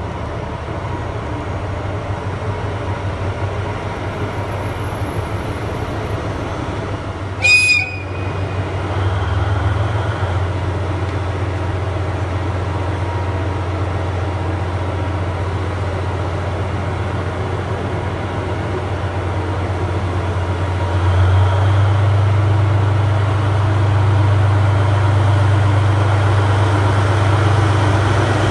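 A JR Freight DF200 diesel-electric locomotive runs with a steady low drone as it hauls 14-series coaches slowly past. The drone grows louder in two steps, about nine seconds in and again about twenty-one seconds in. A short, sharp high-pitched sound stands out about seven and a half seconds in.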